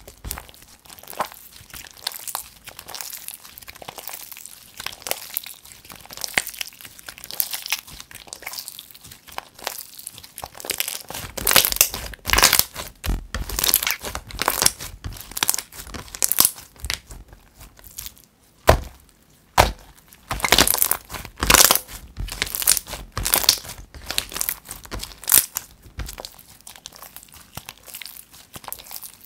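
Clear water-glue slime squished, poked and stretched by hand, giving a dense run of crackling, popping clicks. The clicks grow louder and come in clusters from about eleven seconds in.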